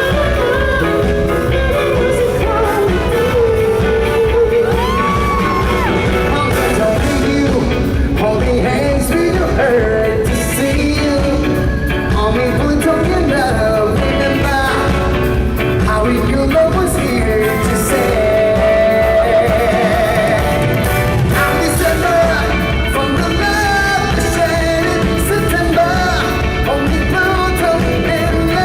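Live pop concert music: a singer's voice over a loud, steady-beat backing track played through the venue's sound system.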